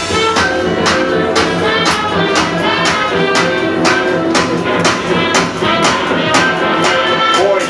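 Dance music from a DJ set playing loud over a club sound system, with a steady beat and sustained melodic lines.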